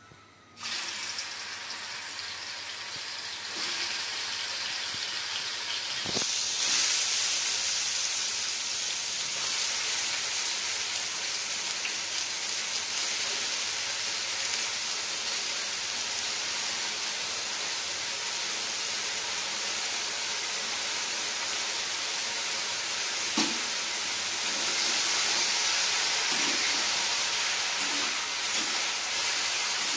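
Sliced mushrooms sizzling in hot oil in a metal kadai, a steady frying hiss that starts sharply about half a second in and gets louder a few seconds later. A sharp knock comes a little past the middle, and a few softer ones near the end.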